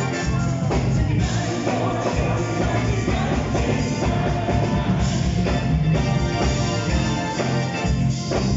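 Live band playing amplified rock music, with a singer at the microphone and electric guitars, heard from among the audience.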